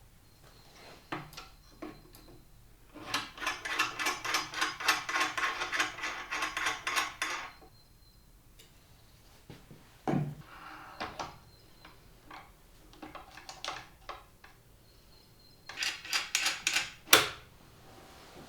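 Hard objects handled on a work surface: scattered clicks and knocks, a few seconds of fast, rhythmic scraping or rattling strokes, then a shorter burst of strokes ending in a sharp knock near the end.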